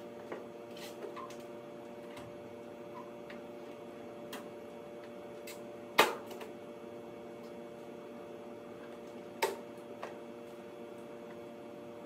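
Steady hum from a Hobart welder standing idle, with scattered light clicks and knocks as the metal sheet and the welder are handled. The loudest, a sharp clack, comes about six seconds in, with another knock about three and a half seconds later.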